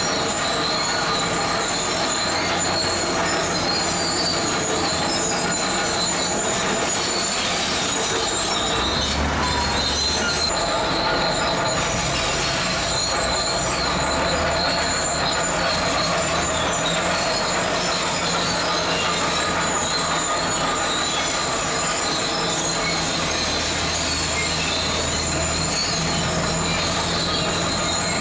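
Zoomlion crawler bulldozer working with its diesel engine running under load. Its steel tracks give a steady high-pitched squeal and clank over a low engine rumble that swells now and then.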